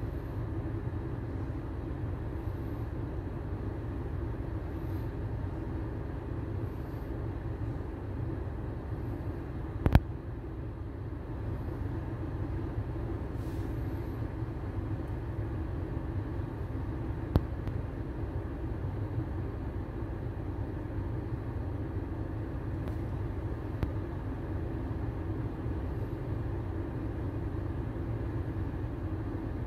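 Steady engine and road noise inside a moving car's cabin. A sharp click is heard about ten seconds in, with a fainter one a few seconds later.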